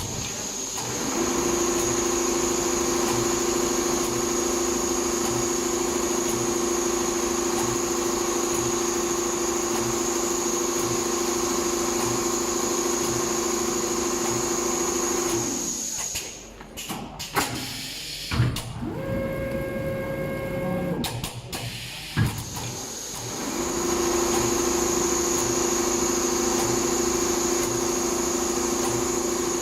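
Multihead leather sewing machine running with a steady machine whine, stopping about halfway through; during the pause there are a few sharp knocks and a brief tone. It then runs up again with the same steady whine.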